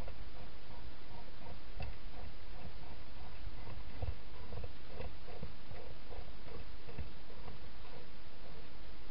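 Wild hedgehog eating from a bowl inside a plastic feeding box: a run of soft, rhythmic chewing clicks, about two or three a second, with a few dull knocks.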